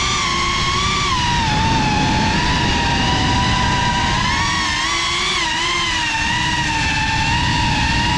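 Motors and propellers of a GEPRC Cinelog35 FPV cinewhoop drone whining, heard from the camera it carries. The pitch rises and falls with the throttle, climbing about a second in and again near five seconds. Rough wind noise runs underneath.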